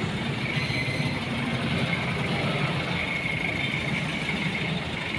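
A vehicle engine idling steadily amid street traffic noise.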